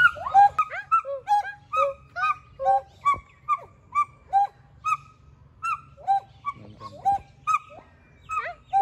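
Gibbon singing: a continuous run of loud whooping hoots, about three a second, each note sliding up or down in pitch.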